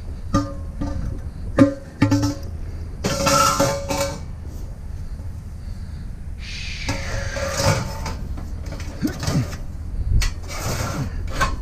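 Steel gazebo posts knocking and clanking as they are handled, each knock ringing on at the same few pitches, with stretches of scraping and rubbing later on.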